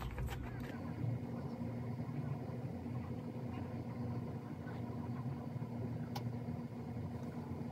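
A steady low hum from something running in the room, unchanging throughout, with a faint click about six seconds in.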